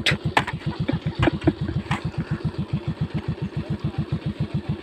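Motorcycle engine idling with an even, slow chug of about nine beats a second. A few sharp clicks come in the first two seconds.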